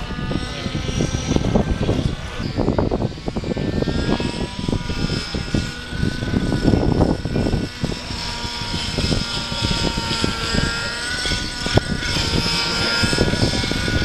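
Radio-controlled model helicopter flying overhead: a steady whine from its motor and rotors that wavers slightly in pitch, with wind rumbling on the microphone.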